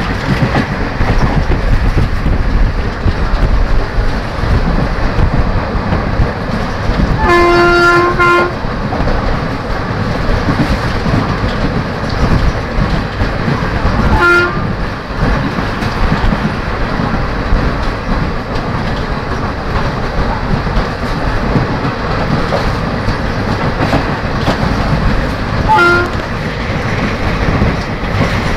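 Passenger train running at speed, heard from a coach window: a steady rushing rumble with the clatter of wheels on the track. A locomotive horn sounds for about a second some seven seconds in, then twice more briefly, around 14 and 26 seconds in.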